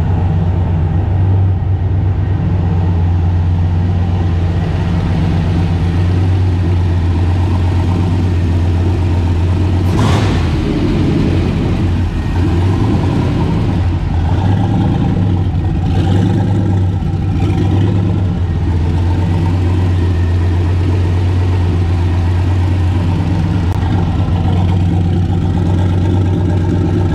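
Turbocharged engine of a Nissan pickup drag truck idling steadily, with a short rush of noise about ten seconds in.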